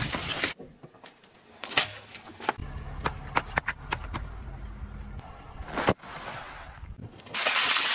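Car tyres rolling over and crushing objects on asphalt: scattered sharp cracks and pops over a low tyre rumble, then a loud crinkling crunch near the end as a tyre flattens a bag of chips.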